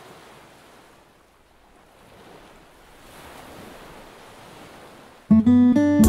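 Small waves washing onto a sandy beach, a soft surf noise that swells and ebbs. About five seconds in, much louder guitar music starts abruptly.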